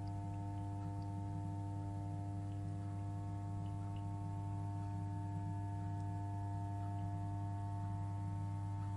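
Dishwasher running: a steady, even motor hum with a few faint ticks scattered through it.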